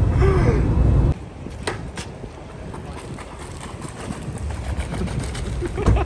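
Steady low road and engine rumble inside a moving van, cutting off abruptly about a second in; then a much quieter background with a few faint clicks.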